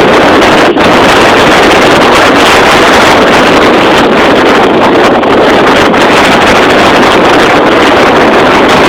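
Tropical-storm wind blasting across a phone's microphone: a loud, steady rushing noise that overloads the recording.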